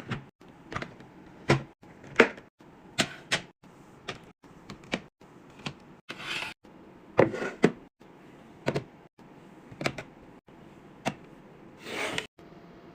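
Restocking sounds: a run of sharp clacks and taps as containers and packaged items are set down and arranged, about one every half second, with a few short rustling swishes.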